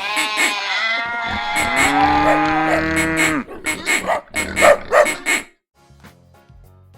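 A cow mooing: one long call of about three seconds that bends in pitch and falls away at the end, followed by a run of short, sharp sounds.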